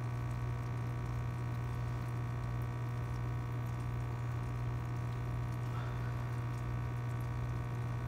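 Aquarium filter running: a steady low hum with water trickling.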